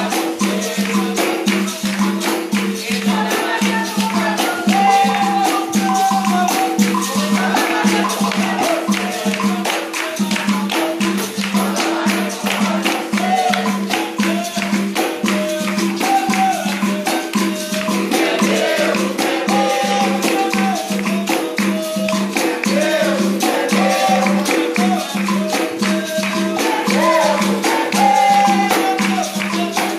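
Capoeira music played live: the gunga berimbau sounding its steady twanging note with its caxixi rattle, a pandeiro beating an even rhythm, and voices singing over it.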